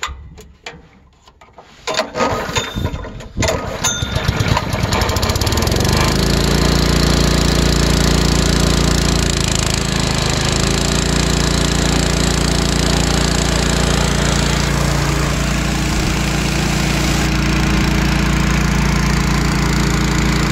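Gas-engine-driven Ingersoll Rand air compressor starting up: a few pulls, then the engine catches about four seconds in and runs steadily under load, driving the compressor pump.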